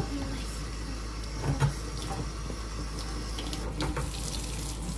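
Kitchen faucet running steadily into a stainless steel sink, the water splashing over a young goat being washed under the stream.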